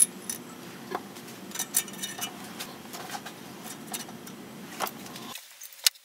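Scattered light metallic clicks and clinks as valve spring retainers are handled and seated on a BMW M54 cylinder head, the sharpest click right at the start.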